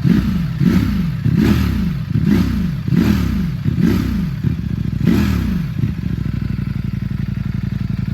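Ducati Streetfighter V4's 1103 cc Desmosedici Stradale V4 on its stock exhaust, warm, being blipped: about seven quick throttle blips in a row, each revving up and dropping back, then settling to a steady, even idle about six seconds in.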